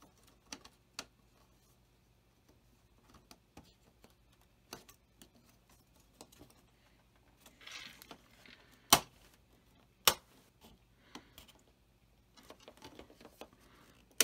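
Hands handling plastic model-kit parts: scattered small clicks and taps of plastic, with a brief rustle just before eight seconds in and two sharp clicks about nine and ten seconds in, as the painted grill piece is pressed into the nacelle half.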